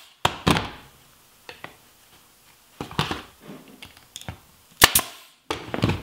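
Pneumatic nail gun driving 3/4-inch nails into wooden molding: sharp snapping shots, singly and in quick pairs, in several bursts with short pauses between.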